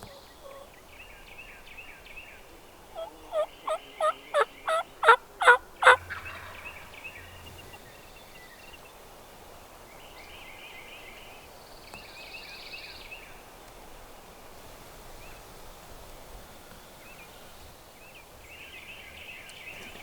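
Wild turkey yelping: a run of about ten quick yelps about three seconds long, getting louder toward the end. Small songbirds chirp now and then.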